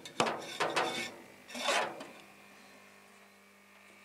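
Three rasping scrapes from a hand handling the metal smoke-generator tube in the first two seconds, over the steady low hum of the small air compressor that blows the smoke through the pipe into the smoker.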